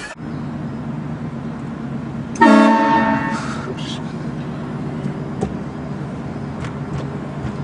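Train horn blasting once, a chord of steady tones lasting about a second, starting about two and a half seconds in. A steady low hum runs underneath.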